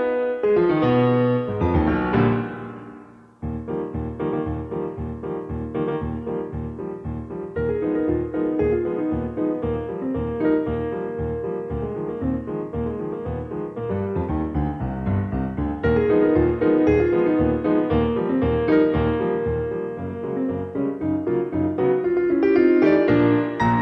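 Background piano music. One piece fades out about three seconds in and another starts abruptly, with piano notes over a steady pulsing beat.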